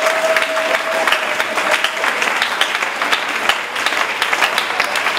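A church congregation clapping their hands: many dense, uneven claps throughout. Over the first two seconds a single held note, most likely a voice, sounds above the claps.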